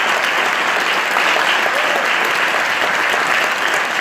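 Audience applauding steadily: dense, even clapping from a seated crowd.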